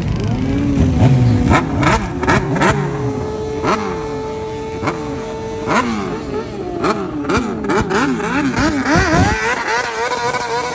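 Several motorcycle and dirt bike engines revving hard together, their pitch sweeping up and down again and again. One engine is held at a steady high rev for about three seconds near the start, and sharp cracks break in throughout.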